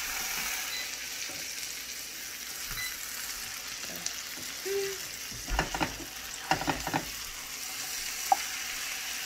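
Scrambled eggs with diced peppers, tomato and meat sizzling in a skillet, a steady hiss, as a spatula stirs them. A few louder scraping strokes of the spatula against the pan come a little past the middle, and a single sharp tap near the end.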